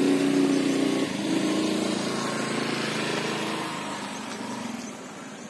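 Small motor scooter engine running at low speed, a steady hum that slowly fades.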